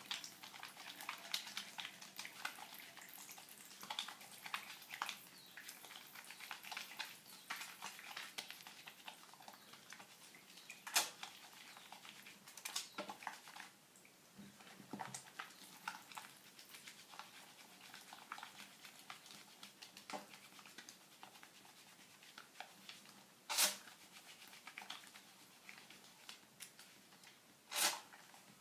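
Wet hands working a bar of olive-oil Castile soap into lather with water, a faint wet squishing and crackling that thins out about halfway through. A few sharper clicks stand out, the last two near the end.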